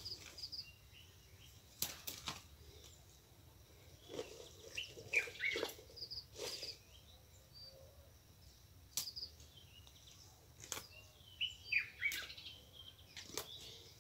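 Leafy vegetable leaves being picked by hand: a few sharp snaps with rustling of the plants between them. Short chirps falling in pitch come in two clusters, around the middle and near the end.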